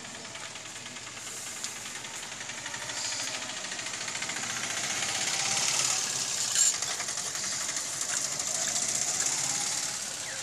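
A small engine running with a fast rattle, growing louder over the first few seconds and then holding steady. A sharp clink about six and a half seconds in.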